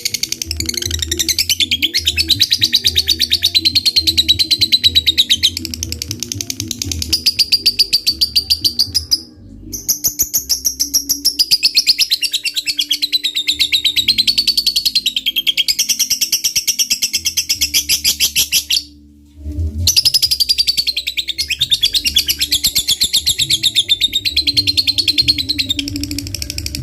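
Lovebird's 'ngekek': a long, rapid, high-pitched chattering trill in runs of about nine seconds each, broken by two short pauses. This long trill is the prized song of a fighter lovebird, played as a lure to provoke other lovebirds into singing.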